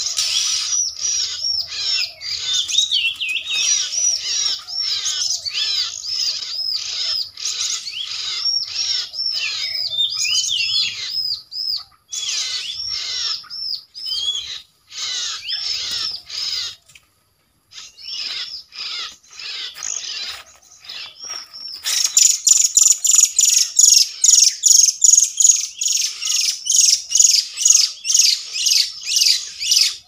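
Oriental magpie-robin (kacer) calls: a fast, regular run of high repeated chirps, a few each second, with brief breaks near the middle. About two-thirds of the way through they grow louder and sharper.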